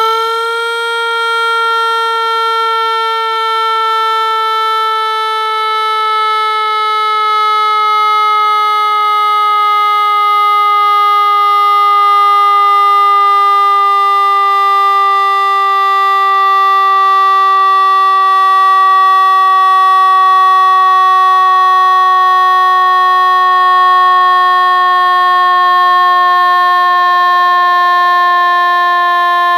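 Electronic 7-tone siren sounding one loud, unbroken horn-like tone that slowly sinks in pitch.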